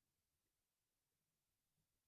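Near silence: a gap in the owl recording with only a faint noise floor.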